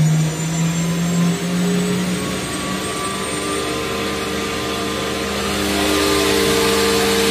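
Spindle of a Samsung MCV-50 vertical machining center accelerating from 5,000 toward 12,000 rpm. It gives a whine that rises in pitch over the first few seconds, then holds steady, getting a little louder near the end.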